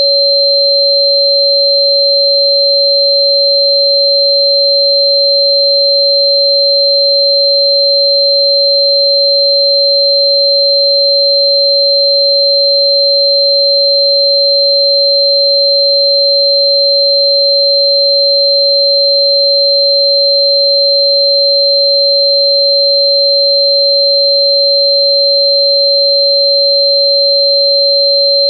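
Two steady electronic sine tones held without change: a strong mid-pitched tone of about 559 Hz, the frequency listed for Chuan Bei Mu (Sichuan fritillary bulb), and a thin high tone well above it.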